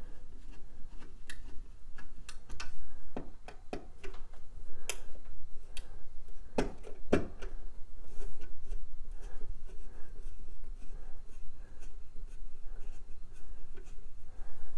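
Screwdriver working the screws of an old round dial thermostat: scattered small clicks, taps and scrapes of the tool against screws and plastic, with a few louder knocks a few seconds in.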